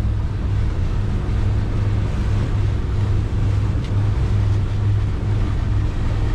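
Boat engine running at a steady low hum, with a hiss of wind and water over it.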